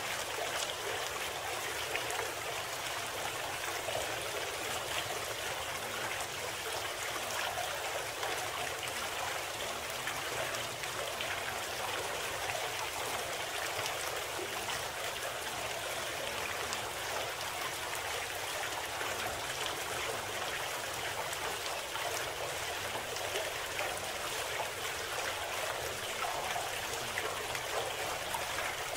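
Running water of a stream, steady and unbroken, with no music or voice above it.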